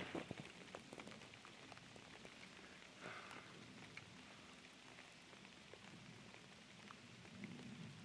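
Rain falling on a pond's surface: a faint, even patter with many scattered single drop ticks.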